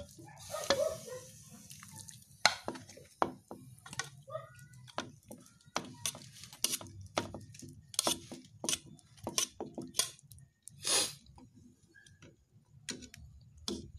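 Mudfish broth boiling in a pan on a gas stove, its bubbles popping in short, irregular clicks over a steady low hum, with a brief louder noise about eleven seconds in.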